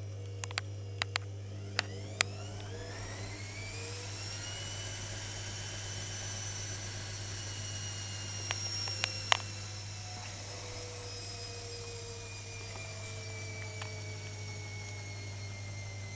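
Privileg washing machine's drum motor whining: after a few sharp clicks it rises in pitch over about two seconds, holds steady, then slowly sinks, over a constant low hum. It is part of the rinse of a hot wash cycle, which the owner finds very strange.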